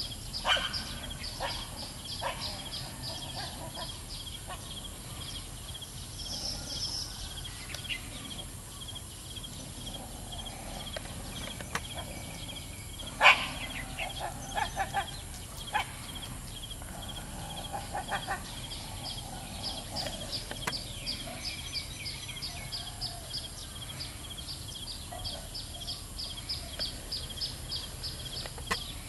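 Rural outdoor ambience: a fast, steady, high-pitched chirping that fades in the middle and returns for the last third. About halfway there is one sharp, loud sound, followed by a few shorter calls.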